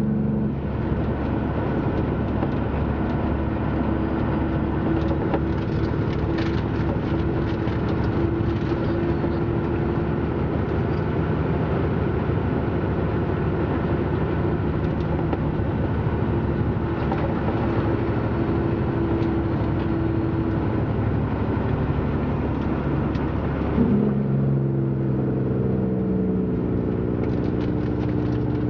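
Road vehicle engine running steadily, with a continuous drone whose pitch shifts near the end.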